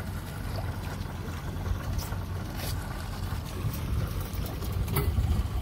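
A fishing boat's engine running with a low steady rumble, with a few sharp clicks about two seconds in and again near the end.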